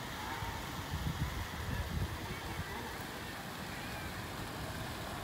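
Steady outdoor background rush, with a few low rumbling knocks between about one and two seconds in.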